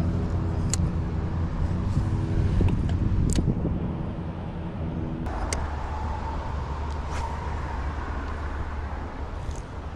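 Road traffic: a steady low rumble with a vehicle's engine hum, giving way about five seconds in to a single higher whine. A few faint clicks are scattered through.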